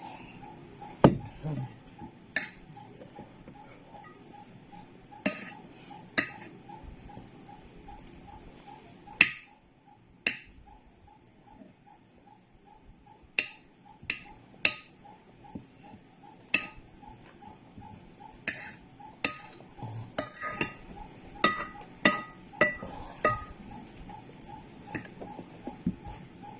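Cutlery clinking against a plate or bowl during a meal: irregular sharp clinks, a few seconds apart at first and coming thick and fast in the last third, some with a short ring. A faint steady hum runs underneath.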